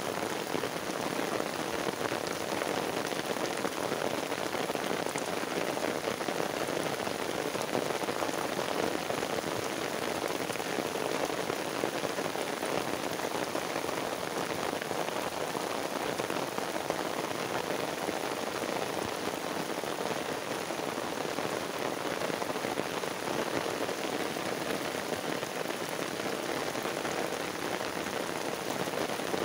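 Heavy rain pouring steadily onto a waterlogged path, grass and a flooded field: a dense, even hiss of drops splashing.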